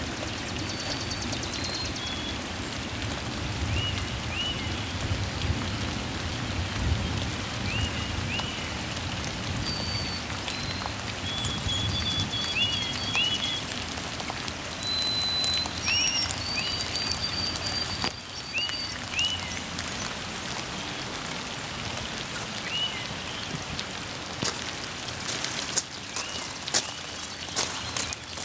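Steady rain falling on standing floodwater and wet gravel. Short high chirping calls sound every few seconds, often in pairs, and a few sharp taps come near the end.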